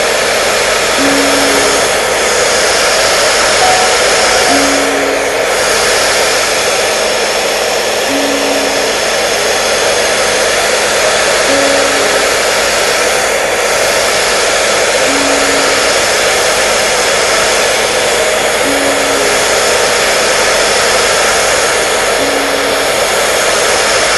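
Hair dryer running steadily, an even, unbroken rushing noise. A faint short low tone recurs underneath about every three and a half seconds.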